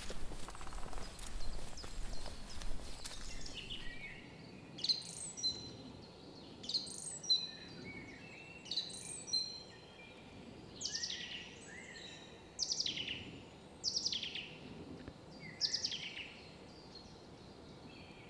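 A small songbird singing short, high phrases, each with a quick falling sweep, repeated every second or two. For the first few seconds, before the bird starts, there is only rustling.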